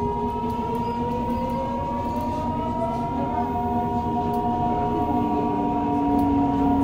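Mitsubishi GTO-VVVF traction inverter and motors of a Yokohama Blue Line 3000A-series subway car whining as the train accelerates, several tones climbing steadily in pitch and changing note about five seconds in, over the rumble of the wheels on the rails.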